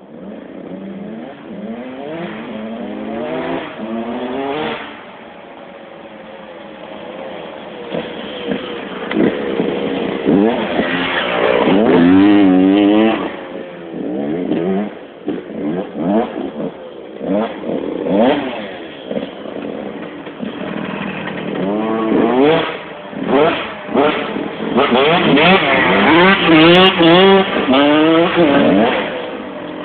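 Husqvarna CR 125 two-stroke motocross bike revving up and down repeatedly as it is ridden around, the engine pitch climbing and dropping with each burst of throttle and gear change. It gets loudest as it comes near, a little before the middle and again near the end.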